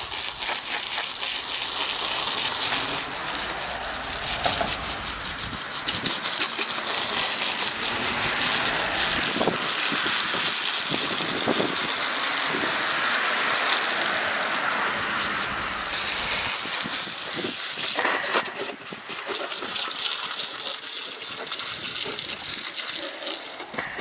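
Garden hose spray nozzle jetting water steadily against an air conditioner's condenser coil, flushing dirt and coil cleaner out of the fins.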